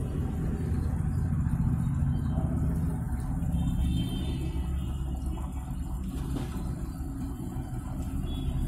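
IFB Senator Aqua SX 8 kg front-loading washing machine running a wash cycle, its drum turning the wet laundry with a steady low hum.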